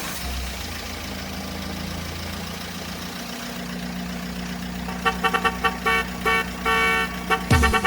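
Truck engine sound effect running steadily, joined about five seconds in by a quick run of short horn toots. The engine note drops away just before the end.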